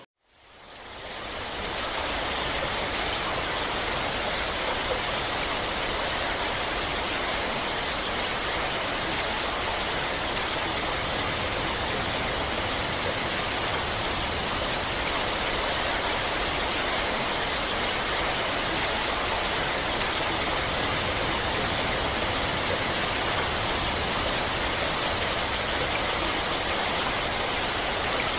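Heavy rain and rushing floodwater: a dense, steady hiss that fades in over the first second or two and holds even throughout.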